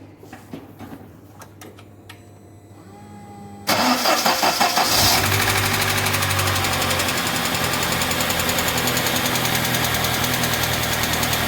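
UAZ Patriot engine starting from cold about four seconds in, briefly revving, then idling with a fast, even ticking from the hydraulic lifters. The lifters are knocking on the cold start, which the mechanic says may simply come from too little oil pressure.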